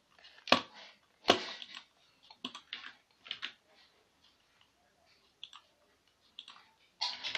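Computer mouse clicking at irregular intervals, two sharp loud clicks in the first second or so and softer clicks after them. A louder sound with a steady tone starts just before the end.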